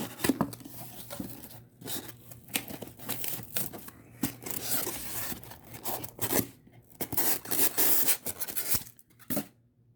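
Packaging being torn open and crinkled by hand to unwrap a mug, in irregular rustling bursts with short pauses and a lull near the end.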